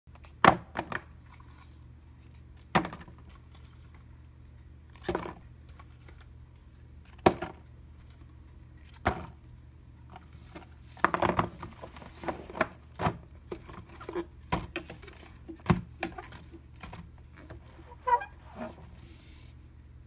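Silicone pop-it fidget toys being set down and stacked on a hard surface: single knocks about every two seconds, then about halfway through a busier run of knocks and rubbing as the boards are handled and piled up.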